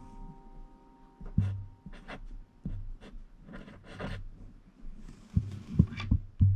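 Fine-tip marker writing on paper in short scratchy strokes, followed by a few soft low thumps near the end.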